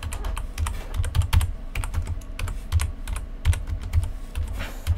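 Typing on a computer keyboard: irregular runs of key clicks, several a second, each with a dull thud underneath, as a file name is typed in.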